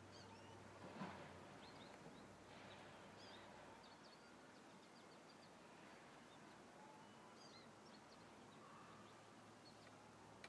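Faint high, squeaky chirps of an American goldfinch calling on and off, short notes in loose clusters, over quiet outdoor background. A soft thump about a second in.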